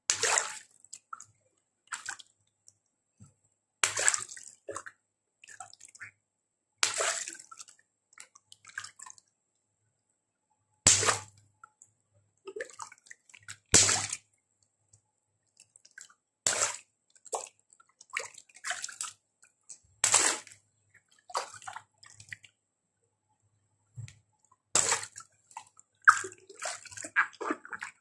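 Water-filled latex balloons popped by hand in a tub of water, a dozen or so sharp pops every couple of seconds, each followed by a splash and dripping water.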